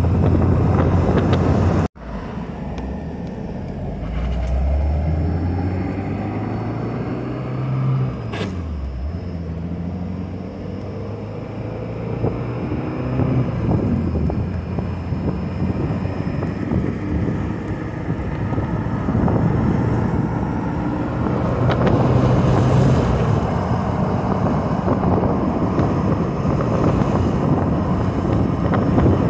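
A 1991 Alfa Romeo Spider Veloce's 2.0-litre DOHC four-cylinder engine under way. It runs steadily, and after a brief cut it pulls up in pitch, drops, and climbs again a few seconds later. For the second half, a steady rushing noise covers the engine.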